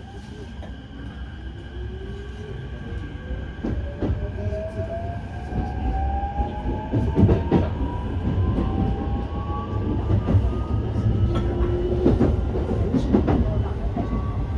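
Keikyu New 1000 series electric train heard from inside the car as it accelerates. The traction motor whine rises steadily in pitch and the running noise grows louder, with clacks from the wheels over rail joints.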